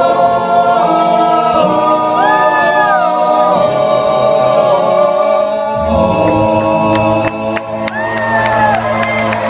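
Group of male voices holding a long closing chord in close harmony, with a lead singer's voice sliding up and down above it in ad-lib runs.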